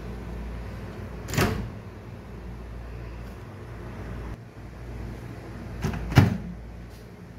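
Microwave oven door clunking shut about six seconds in, just after a lighter click, with an earlier knock about a second and a half in, over a steady low hum.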